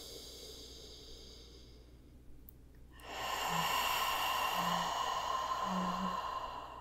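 A woman's slow, deep breath in, then after a short pause a long audible sigh out, louder and breathier than the inhale, with a few faint touches of voice in it.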